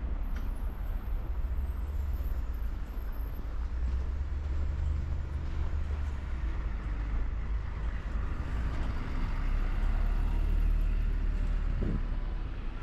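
City road traffic: vehicles driving past with a steady low rumble that swells about ten seconds in, then eases off near the end.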